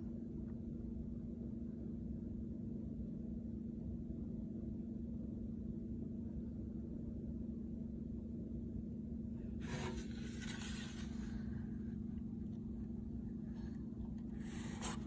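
Quiet room tone with a steady low hum; a short papery rustle about ten seconds in and another near the end, the page of a picture book being turned and handled.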